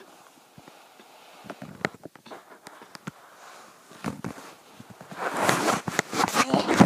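Handling noise: plush toys and a handheld camera being moved about, with scattered small knocks and fabric rustling, growing into a louder burst of rustling in the last couple of seconds.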